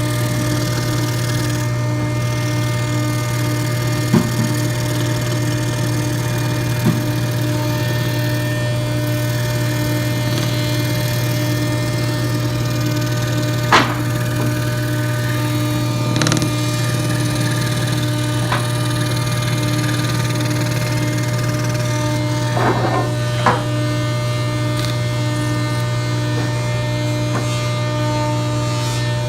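SCR-70 electric scroll saw running steadily while cutting wood, its motor and blade making a constant hum. A few sharp clicks or knocks sound over it, the loudest about a third of the way in.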